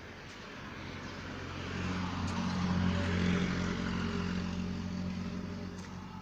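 A motor vehicle passing by: its engine hum and road noise grow louder, peak about halfway through, then fade away.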